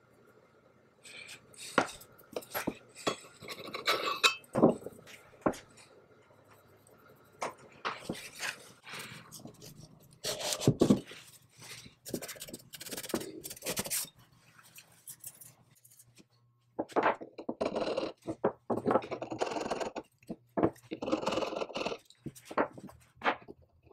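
Short, irregular scraping strokes of a steel scraper blade shaving black enamel paint off the edges of a cast-iron part, along with a cloth rubbing over the metal.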